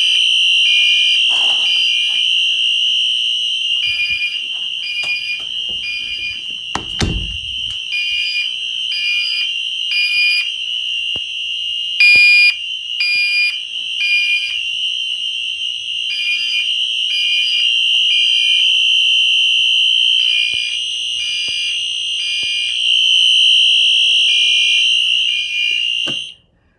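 Fire alarm horns sounding at full volume, set off by a pull station: a steady continuous alarm tone with a second signal pulsing in short repeated blasts over it. A low thump comes about seven seconds in, and the alarm cuts off suddenly near the end.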